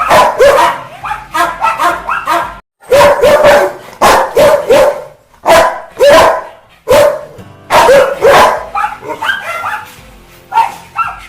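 Rottweiler barking angrily: a rapid, loud string of barks, one or two a second, with a brief break about three seconds in.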